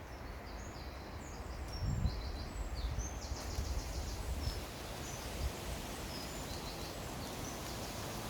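Small songbirds singing: quick high chirps and short trills, one run of rapid repeated notes near the middle, over a steady hiss of wind and rustling leaves. A low rumble comes in about two seconds in and dies away after about five and a half seconds.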